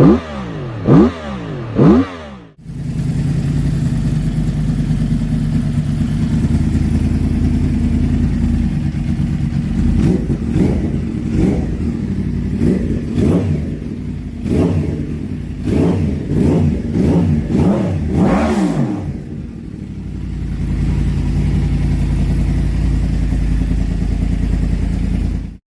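Yamaha R1 (RN22) crossplane inline-four motorcycle exhaust, revved in quick throttle blips and idling in between. There is a sudden cut about two and a half seconds in. Then it idles, gives a run of about a dozen blips, and idles again before stopping abruptly.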